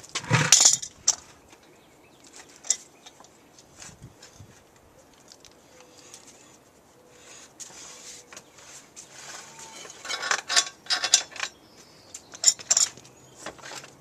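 Scattered clinks and taps of metal tools and parts being handled while a motorcycle wheel is removed, with a cluster of clinks at the start and again near the end.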